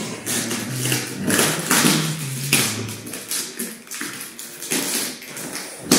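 Hand rubbing a Shiba Inu's face and fur close to the microphone, with the jacket sleeve rustling: a run of irregular swishing, rubbing noises.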